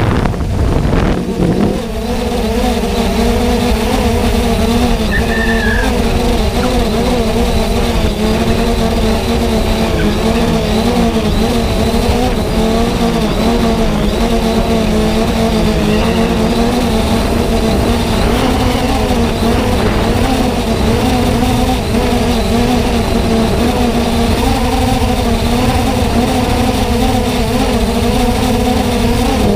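Multirotor drone's electric motors and propellers whirring steadily, heard close from its own onboard camera, the pitch wavering slightly as the motors adjust, over low wind rush on the microphone.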